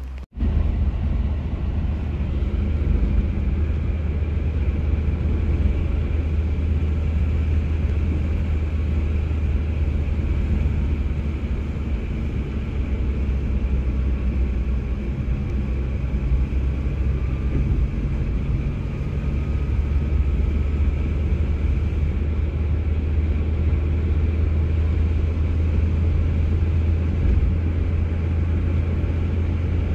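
Steady low rumble, like a running engine or motor, starting abruptly just after a short dropout and holding even throughout.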